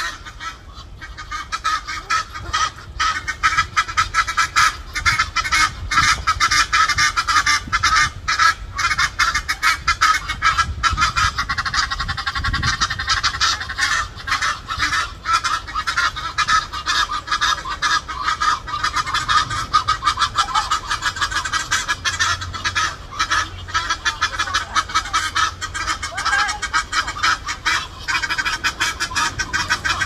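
A pair of Egyptian geese calling back and forth without pause, a fast, harsh run of honks and cackles.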